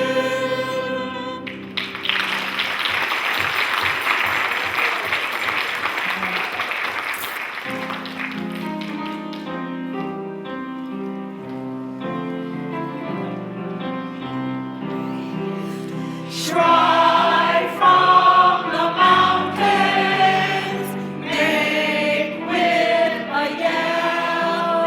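A group of voices singing with instrumental accompaniment in a stage musical number. A held note ends in the first couple of seconds and gives way to several seconds of noisy wash. A stretch of accompaniment alone follows, and the singing comes back in louder phrases in the second half.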